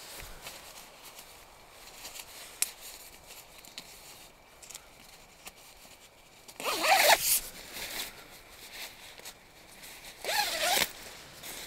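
A zipper pulled twice, in two quick runs about three and a half seconds apart, with faint light ticks in between.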